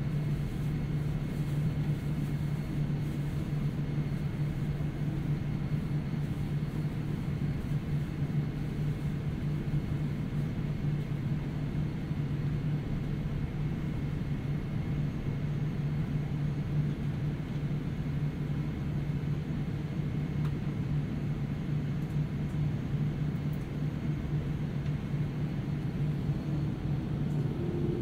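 Cabin sound of a Boeing 787-9 taxiing at low thrust: a steady low engine hum over an even hiss, from its Rolls-Royce Trent 1000 engines. Near the end a higher tone begins to rise.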